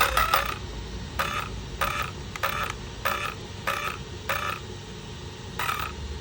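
Arrma Kraton 6S RC truck's electronic speed control beeping through its brushless motor: three quick beeps, then a run of single beeps about every 0.6 s, with one more near the end. The owner suspects a bad motor or a bad ESC.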